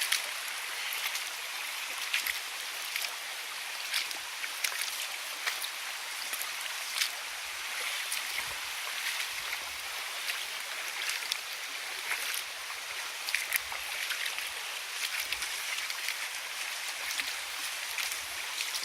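Rushing river water, a steady hiss, with many small sharp ticks scattered through it.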